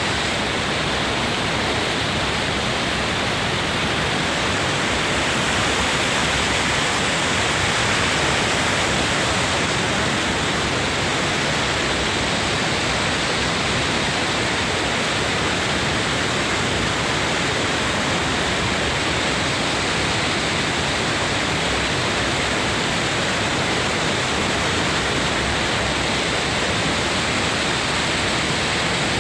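Waterfall heard up close: a steady, even rush of falling water.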